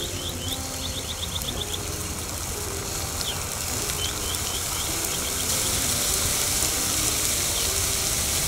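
Hot oil in a propane turkey fryer pot sizzling and spattering hard as the turkey goes in, boiling over onto the burner and catching fire. The hiss grows steadily louder.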